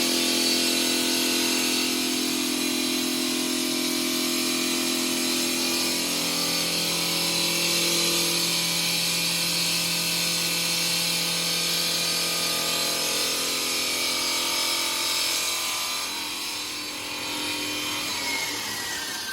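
Stone-cutting machine's motor and saw blade running, a steady mechanical noise with a whine, its tones shifting about six seconds in. Near the end the whine falls in pitch and the noise eases off as the machine slows.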